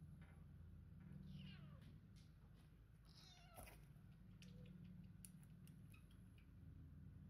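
Three-week-old kitten mewing twice: thin, high cries that slide down in pitch, about a second in and again about three seconds in, faint overall.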